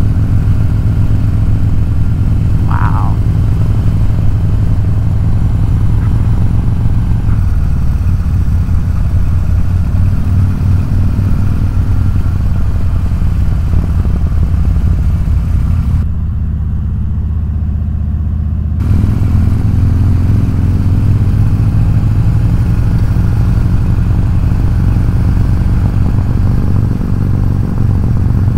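Harley-Davidson V-twin motorcycle running steadily at cruising speed, heard from the rider's seat. A brief falling chirp comes about three seconds in, and about two-thirds of the way through the sound goes dull for about three seconds.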